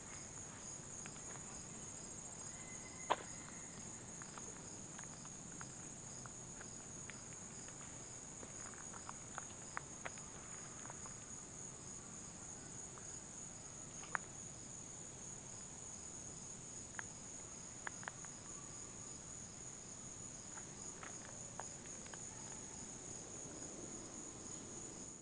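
Steady high-pitched chorus of insects, with an evenly pulsing trill just beneath it, broken by scattered sharp clicks.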